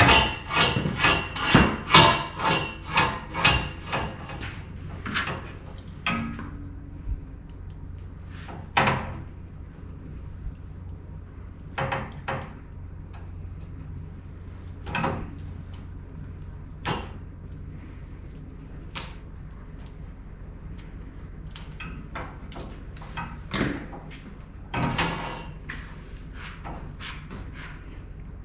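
Hand-tool work on the service entrance's cable and fittings: rhythmic scraping strokes, about two a second, for the first few seconds, then scattered clicks and knocks of metal parts being handled, over a steady low hum.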